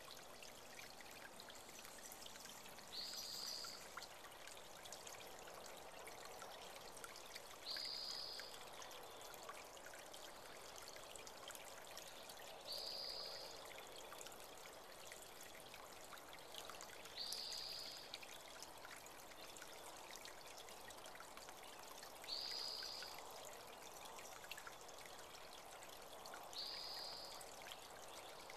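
Small creek water trickling steadily and faintly, with a bird giving a short, high, single-pitched call about every five seconds, six times in all.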